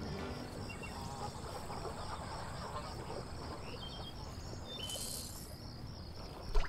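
Evening marsh ambience: insects chirping in an even, repeating high-pitched rhythm over a steady low background. A brief hiss comes about five seconds in, and a short thump, the loudest sound, near the end.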